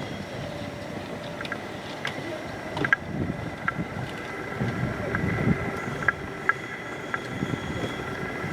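Train running along the tracks below, with a steady high whine, a low rumble and scattered metallic clicks; wind buffets the microphone.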